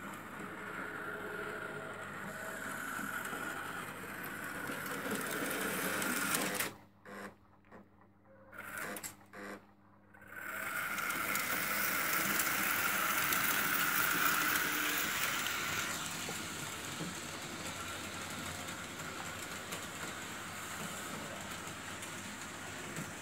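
Märklin H0 model trains running on the layout's metal track, among them a model SBB Crocodile electric locomotive: a steady whirr of small electric motors with wheel noise. About seven seconds in it drops almost to silence for about three seconds, with a few short bursts, then resumes and is loudest as the locomotive passes close.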